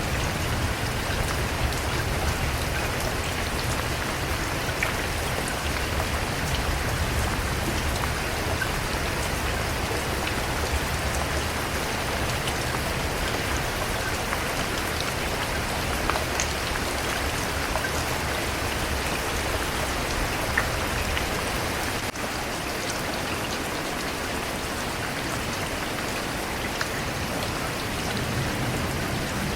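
Steady rain falling on a surface, an even hiss with individual drops ticking through it. A low rumble underneath drops away about two-thirds of the way through and returns near the end.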